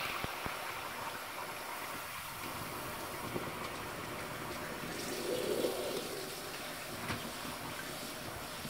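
Bathroom sink tap running a thin stream of water into the basin and drain, a steady splashing hiss, with a few soft knocks and a brief swell in level about five seconds in.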